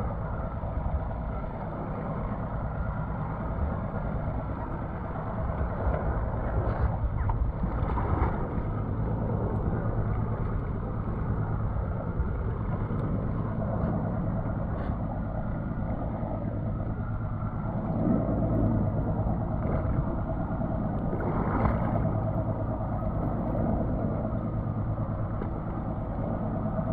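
Twin Mercury outboard motors idling steadily, with wind buffeting the microphone and a few light knocks along the way.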